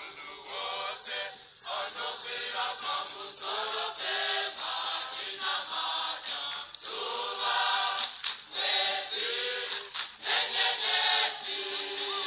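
Intro music: a choir singing over a steady beat.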